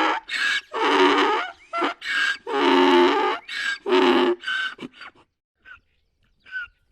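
Donkey braying: a run of rhythmic, alternating hee-haw pulses that grow shorter and fade out about five seconds in, followed by a few faint short calls.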